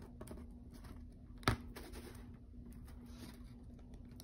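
Quiet room with a faint steady hum and a single sharp tap about a second and a half in, from handling things on a foam board.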